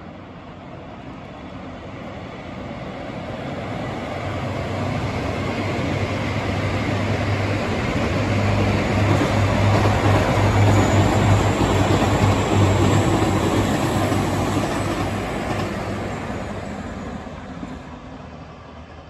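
A JR Hokkaido limited express train passing by on the line. Its running noise builds steadily, is loudest about halfway through with a low hum, then fades as it goes away.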